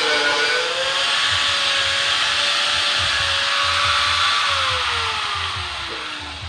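Corded angle grinder cutting through a galvanized steel rectangular tube with a loud, high grinding whine. About four and a half seconds in it is switched off, and its whine falls as the disc spins down.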